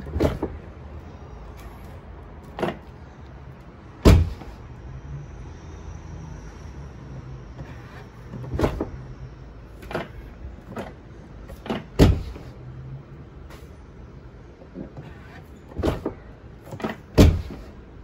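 Tesla Model Y front door, fitted with an aftermarket soft-close latch, being opened and closed over and over: a series of sharp clunks at irregular intervals, with brief electric motor whirs between them as the frameless window glass drops and rises.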